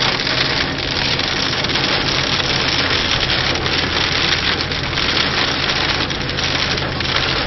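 Very heavy rain mixed with hailstones pelting a car's roof and windscreen, heard from inside the moving car as a dense, steady hiss, over the car's steady low engine and road hum.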